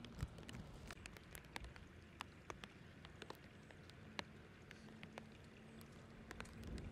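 Faint outdoor ambience: many scattered, irregular ticks and light clicks over a low rumble, with a faint steady low hum coming in about four seconds in.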